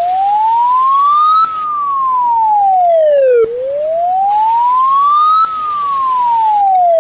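Siren wailing: a single pure tone rising for about two seconds and falling for about two seconds, repeating evenly through nearly two full rise-and-fall cycles.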